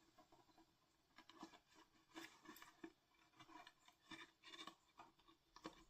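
Faint, irregular rustling and small taps of cardstock being handled and pressed together.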